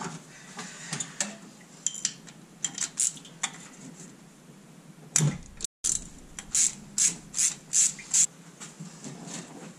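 Ratchet wrench with an extension undoing the thermostat housing bolts on a 5.9 Magnum V8: bursts of metallic ratcheting clicks and clinks, with a run of strokes about two a second in the second half.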